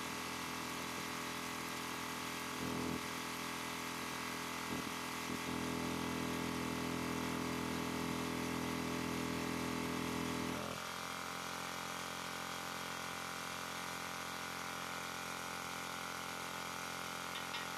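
Steady machine hum with several fixed tones, its lower part swelling about five seconds in and dropping away suddenly near the eleven-second mark.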